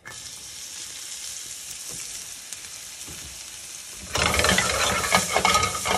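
Sliced mushrooms and minced shallots sizzling as they hit a very hot sauté pan with pieces of butter. A steady hiss at first; about four seconds in it turns suddenly louder and crackling, with many sharp pops.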